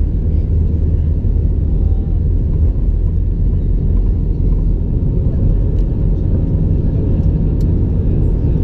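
Airbus A321 at takeoff thrust, heard from inside the cabin: a loud, steady low rumble of the jet engines and the wheels on the runway as the takeoff roll ends and the aircraft rotates.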